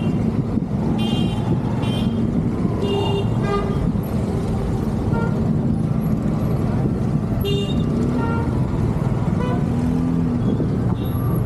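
Busy street traffic heard from a moving scooter: a steady engine and road rumble, with frequent short, high-pitched horn toots from the surrounding motorbikes and cars scattered throughout.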